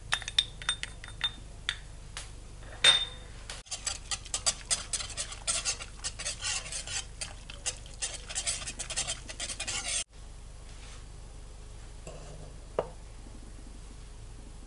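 Wire whisk stirring agar agar powder into water in a metal saucepan: a rapid clatter of the wires against the pot for about six seconds, which stops abruptly. It is preceded by a few separate sharp clinks, the loudest about three seconds in.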